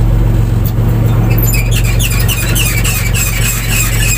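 Fishing boat's engine running with a steady low hum. From about a second and a half in, a rapid run of high, squeaky chirps, several a second, sounds over it.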